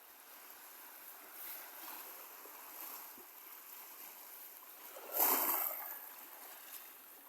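River water running steadily, swelling now and then, with a brief louder rush of noise about five seconds in.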